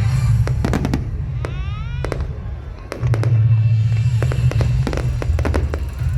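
Fireworks going off: a rapid series of bangs and crackles, with a rising whistle about one and a half seconds in.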